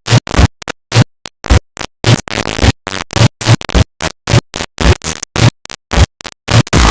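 Heavily distorted, overdriven audio chopped into short noisy bursts with silent gaps between, several a second: a stuttering glitch edit.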